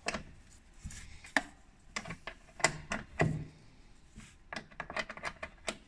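Sharp, irregular clicks and knocks of a metal hand tool working against the parts of a car's wiper cowl, with a quicker run of clicks near the end.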